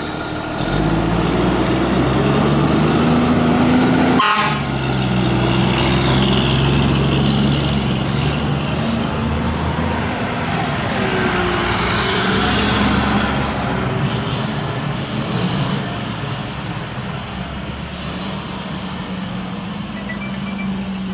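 Fire ladder truck pulling out under power, sounding its air horn in long blasts while a siren wails over it. There is one sharp click about four seconds in, and the engine and horn ease off in the second half.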